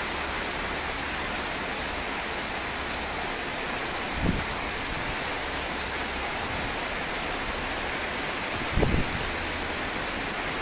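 Heavy storm rain falling steadily, a dense even hiss, with two brief low thumps about four and a half seconds apart.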